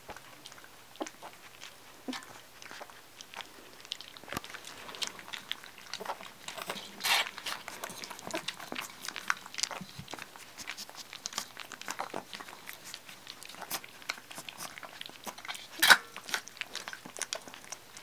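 Young Labrador puppies lapping milky food from a stainless steel saucer puppy dish, clumsy first attempts at eating from a dish. Many small irregular wet clicks and taps of tongues, paws and claws on the metal, with a couple of louder knocks, the loudest near the end.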